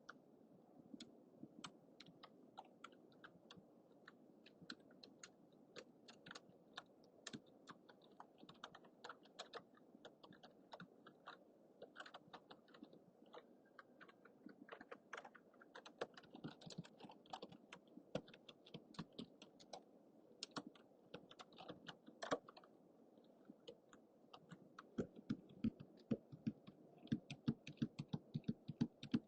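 Typing on a computer keyboard: irregular keystroke clicks, several a second, over a faint hiss from a low-budget microphone. The keystrokes grow louder and quicker about four seconds before the end.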